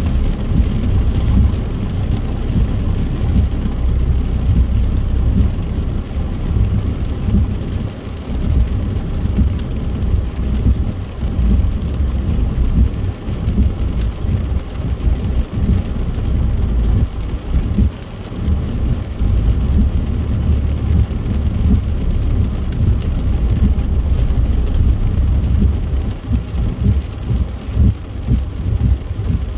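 Car driving on a motorway in heavy rain: a steady low rumble of tyre and road noise on the wet surface, with the hiss of rain and a few faint ticks of drops.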